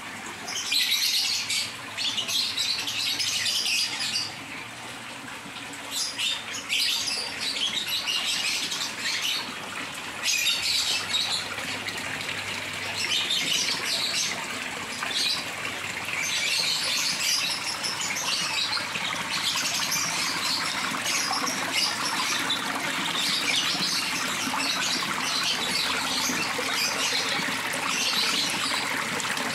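Water from a paludarium's mossy rock waterfall trickling and splashing steadily into the fish pond below. This falling water is what aerates the pond.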